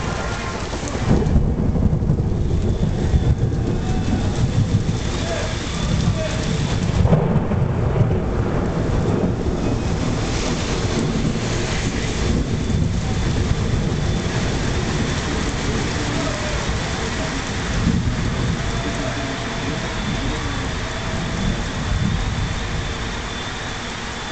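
A long roll of thunder starts about a second in, rumbling on in several swells before slowly dying away, over steady rain.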